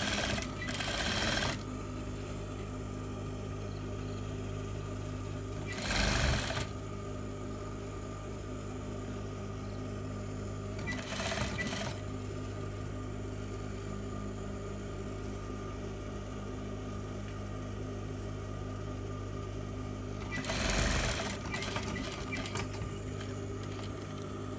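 Sewing machine running steadily, stitching a long basting seam that tacks the overlay panel to the front of a garment. A few brief, louder noisy bursts break in at the start and again at about 6, 11 and 21 seconds.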